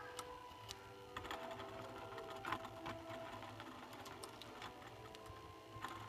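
Small motor of a Lego model ceiling fan running on medium speed: a faint, steady whir made of a few steady tones over a low hum, with light clicks here and there. The tones shift and settle about a second in.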